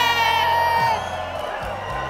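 Background music with a steady beat and a long high held vocal note that ends about a second in, followed by crowd cheering and whoops.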